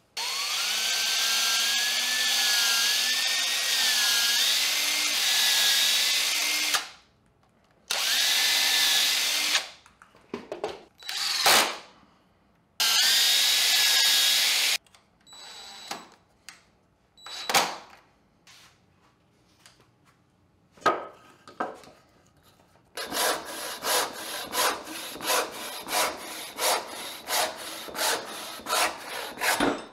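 Cordless drill boring into a wooden bench stop in three bursts, the longest about seven seconds, its whine wavering under load, with a few knocks between. Then, for the last seven seconds, a hand saw cutting wood in even strokes, about two a second.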